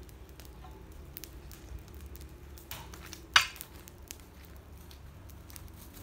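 Footsteps crackling through dry grass and twigs, with one sharp crack a little past halfway.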